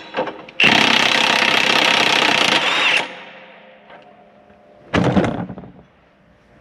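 Power tool, most like an impact wrench, run hard for about two and a half seconds to back out the bolt that holds a planter closing disc arm. A second short burst of the tool comes about five seconds in.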